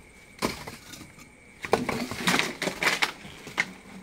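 Bricks and stones knocking and scraping against each other as rubble is shifted by hand, in a handful of separate clacks.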